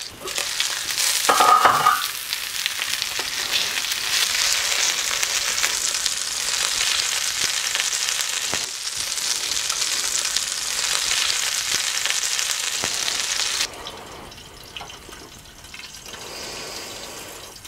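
Pieces of battered pike sizzling as they fry in oil in a pan, with scattered clicks and scraping from a spatula turning them and one brief high squeak about a second and a half in. The sizzling stops suddenly near the end, leaving a much quieter background.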